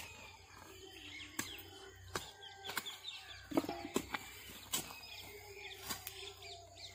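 Scattered knocks and scrapes of a hoe and hands digging in dry, clumpy soil around an elephant foot yam, with birds chirping and calling behind.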